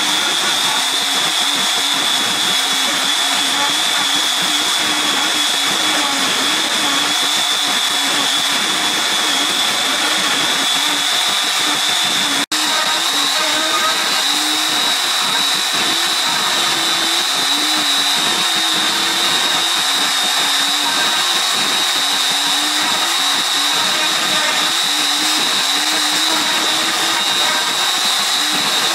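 Router spindle on a homemade wooden-frame CNC machine running with a steady high whine as its bit carves into a wooden board, a lower tone rising and falling as the bit moves through the wood. It cuts out for an instant about twelve seconds in.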